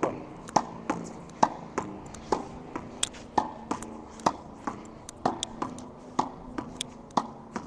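Tennis volleys against a practice wall: a quick, steady series of sharp knocks as the ball strikes the racket strings and then the wall, about two to three a second.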